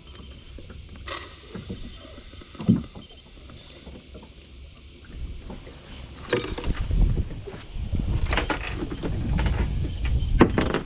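Knocks and clatter aboard a small fishing boat, over a wind rumble on the microphone that grows heavier about six seconds in.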